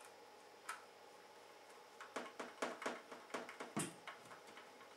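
Small screwdriver turning a mounting screw through a graphics card into a full-cover GPU water block: faint, with a single click about a second in, then a quick run of light clicks and ticks from about two seconds in, the loudest near four seconds.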